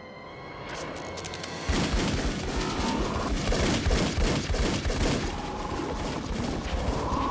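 Rapid pistol fire from two handguns, shots in quick succession for several seconds, starting about a second and a half in.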